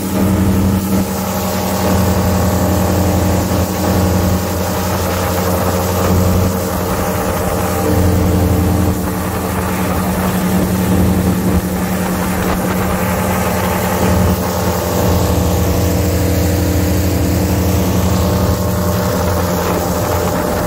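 Airboat's engine and rear propeller running at speed, a loud steady drone with a strong low hum, with wind rushing past.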